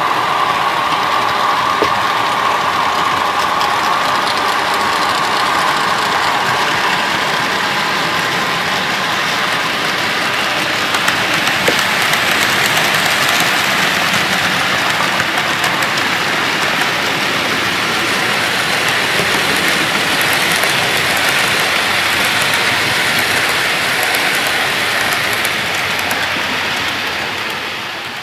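OO gauge model train running past on the track, a Bachmann Class 90 locomotive hauling mail coaches: a steady whirring rush of motor and wheels on rails that fades near the end.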